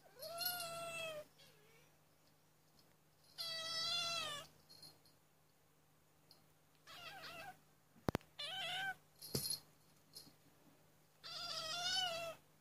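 A Burmese kitten meowing five times, drawn-out meows a few seconds apart, the third one shorter and fainter. A sharp click comes about eight seconds in.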